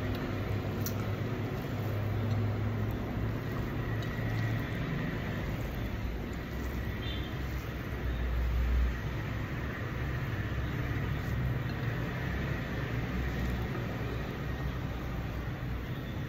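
Steady low rumbling background noise with a faint hiss, with a few faint clicks.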